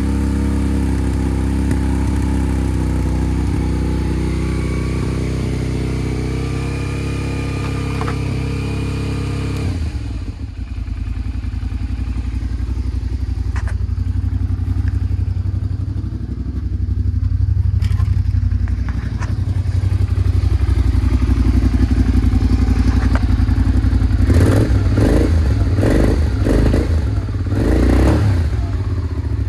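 Suzuki SV650S's V-twin engine running on a paddock stand, idling steadily at first, its sound changing abruptly about a third of the way in. The revs rise and fall once around the middle, and the throttle is blipped several times near the end.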